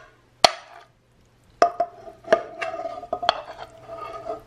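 A ceramic spoon knocking and scraping against a metal frying pan while scooping minced meat out of it: one sharp click, then from about a second and a half in a run of clicks and scrapes, each leaving the pan ringing briefly.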